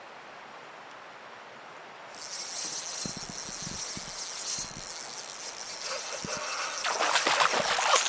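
Fishing reel running from about two seconds in as a hooked brook trout is played, with a few low knocks of the rod being handled. Near the end the trout thrashes at the surface beside the canoe, a run of loud, choppy splashes.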